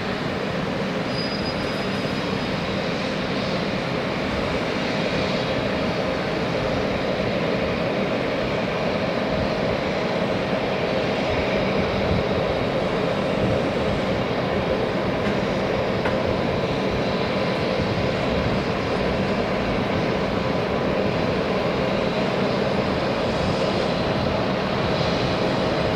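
BAe 146-200 jet airliner running on the ground: a steady whine and rush of turbine noise, with a few constant tones over it.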